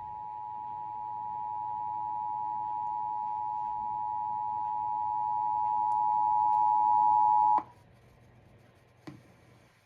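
Emergency Alert System two-tone attention signal, two steady pitches sounding together. It grows gradually louder and cuts off abruptly about seven and a half seconds in, marking the start of an EAS required monthly test alert. A faint click follows near the end.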